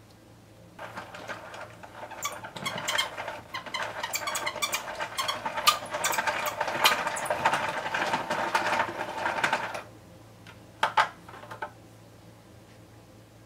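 Hand-cranked plastic ramen noodle maker being turned, its gears and rollers rattling and clicking quickly as a sheet of dough is rolled through. The cranking stops about ten seconds in, followed by a few short clicks.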